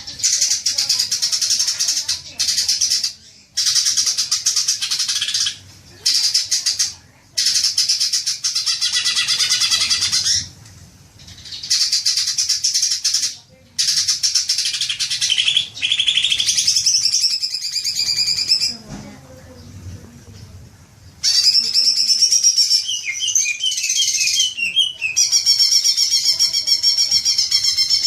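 Cucak ijo (green leafbird) singing: long bursts of rapid, dense chattering broken by short pauses. After a lull about two-thirds through, it gives a run of varied whistled notes sliding up and down.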